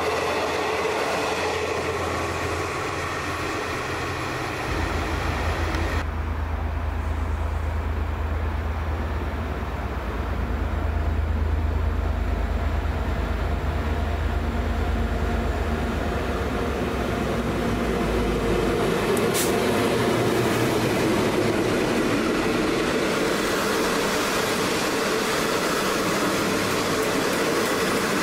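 A V/Line VLocity diesel railcar set running past on the tracks; then, after a cut about six seconds in, a passenger train rumbling low as it approaches and then passing with a steady noise of wheels on rail.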